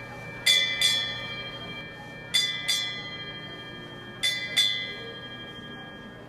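Brass ship's bell struck by hand in pairs, three double strokes about two seconds apart, each stroke sharp and the tone ringing on between pairs.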